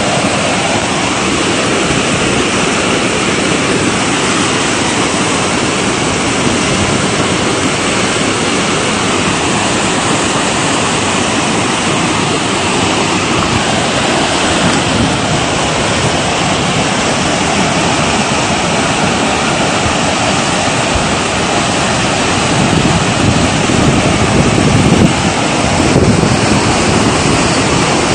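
Muddy flash-flood torrent rushing over rocks, a loud, steady wash of water noise that grows a little louder and deeper in the last few seconds.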